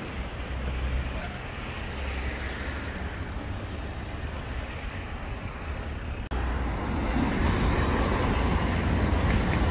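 Street ambience: road traffic going by, with wind rumbling on the microphone. The sound breaks off briefly about six seconds in and comes back a little louder.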